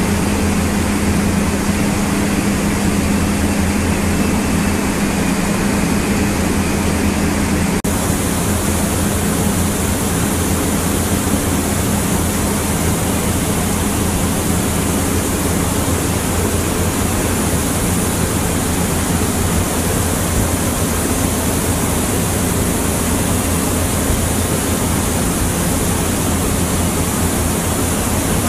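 Horizontal vacuum belt filter plant running: steady machinery noise with a low hum, switching abruptly about eight seconds in to a brighter, even rushing hiss.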